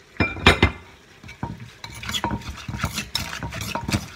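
Wooden pestle pounding in a clay mortar, crushing shallots for som tam. A few hard strikes come near the start, then, after a short pause, quick steady pounding at about four or five strokes a second.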